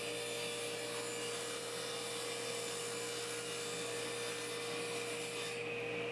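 A power tool's motor running steadily with a constant whine, with no change in load.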